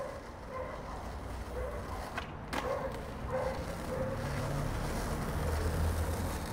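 Skateboard wheels rolling over rough asphalt, getting louder as the board comes closer, with a sharp click about two and a half seconds in.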